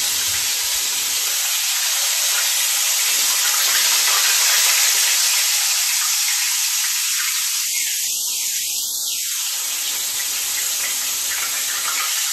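Crumbed oysters frying in shallow oil in a stainless steel pan: a steady sizzle, a little louder around the middle. The burner has just been switched off and the golden-brown oysters are being lifted out with tongs.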